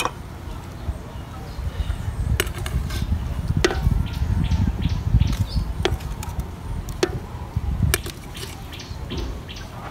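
Metal spoon clinking against a plate and the rim of an aluminium cooking pot as seasonings are scooped and tipped in: about five sharp, separate clinks over a steady low rumble.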